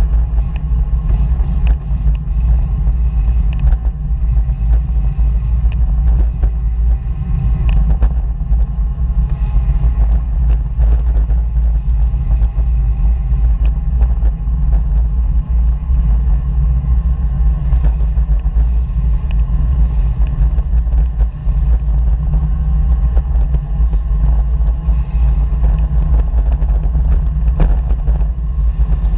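Steady low rumble of wind and riding noise on the microphone of a moving bicycle, with a few faint clicks.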